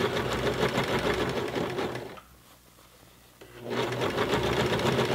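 Baby Lock BL9 mechanical home sewing machine stitching through a thick denim jeans hem, a fast even run of stitches. It stops a little after two seconds in and starts stitching again about a second and a half later.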